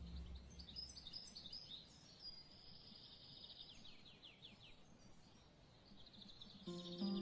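Faint birdsong: scattered high chirps and a quick trill of short repeated notes in the middle, over a soft hiss. Plucked-string music comes back in near the end.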